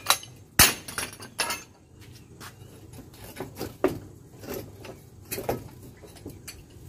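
Pipe sections and their joint fittings knocking and clattering on a concrete floor as a pipe frame is pulled apart: three sharp knocks in the first second and a half, then lighter taps and clinks.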